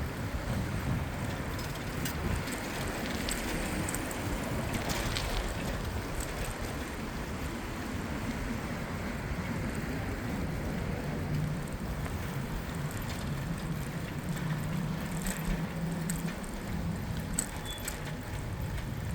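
Steady wind and road rumble of a bicycle riding through city streets, with a low engine hum from nearby traffic joining a little past halfway.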